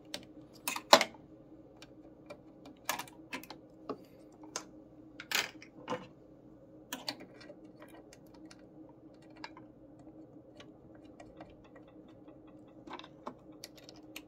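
Scattered clicks and taps of a Janome Memory Craft 6500 sewing machine being handled while its presser foot is swapped for a free-motion quilting foot, with the sharpest clicks about a second in and around five seconds, over a faint steady hum.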